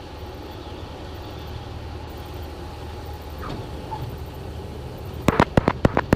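Small single-engine airplane's piston engine running at low power, a steady low drone, while the plane rolls on the ground after landing. About five seconds in comes a quick run of sharp clicks.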